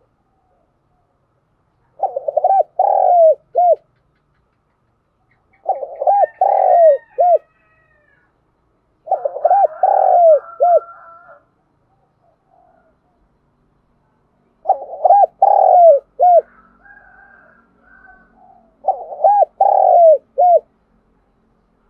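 Spotted dove cooing: five call phrases a few seconds apart, each a run of three or four low coos.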